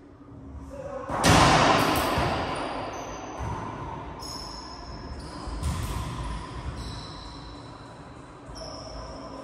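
Racquetball court: a loud smack of the ball about a second in that echoes and dies away over a few seconds, with weaker knocks later.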